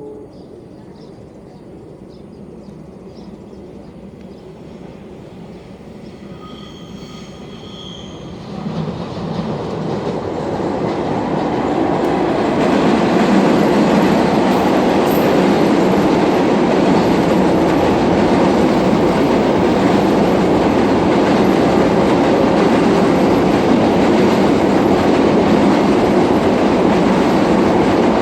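A train passing close by on the rails: a low rumble builds from about nine seconds in to a steady, loud rush of wheels and carriages.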